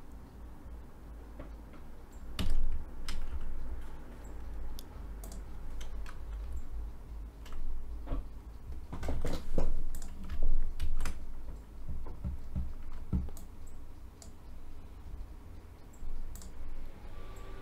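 Computer keyboard typing in irregular bursts of keystrokes, busiest about nine to eleven seconds in.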